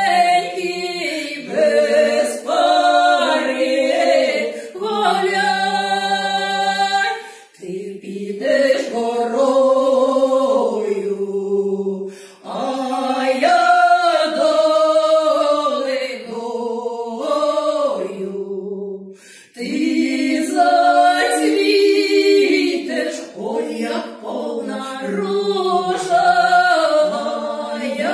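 Two women singing a Ukrainian folk song together a cappella, in long drawn-out phrases with brief gaps between them.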